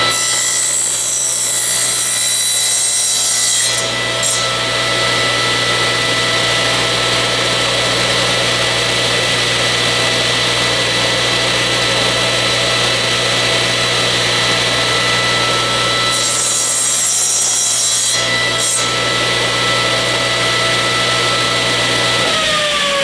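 Table saw running steadily at speed with a constant motor hum, its blade cutting through a small piece of wood twice, at the start and again about two thirds of the way in. Near the end the saw is switched off and its pitch starts to fall as the blade coasts down.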